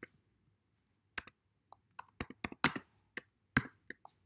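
Computer keyboard typing: a dozen or so sharp, irregular keystrokes, sparse at first and coming faster after about two seconds.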